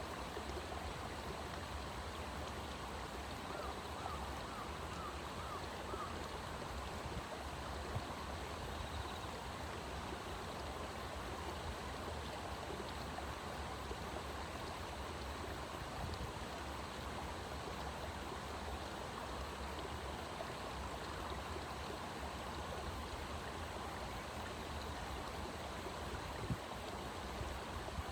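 Steady rushing of running water, like a stream, with a brief run of faint high chirps about four seconds in and a couple of light knocks.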